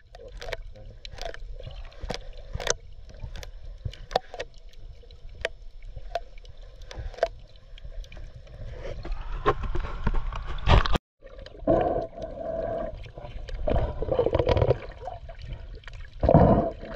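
Underwater sound picked up by a submerged action camera: irregular sharp clicks over a muffled low rumble. After a brief cut about eleven seconds in, muffled water noise comes in surges.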